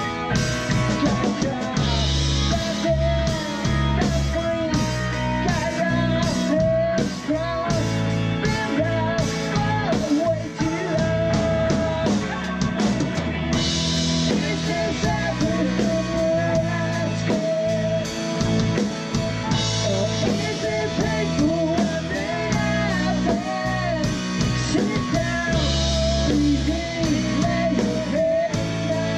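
Rock song played by a band: guitar, bass and drum kit, with a lead melody line that bends in pitch and recurring cymbal crashes.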